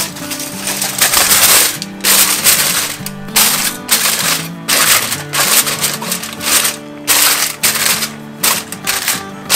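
Background music with steady held notes, over a series of short, irregular bursts of rustling, clattering noise, roughly one or two a second.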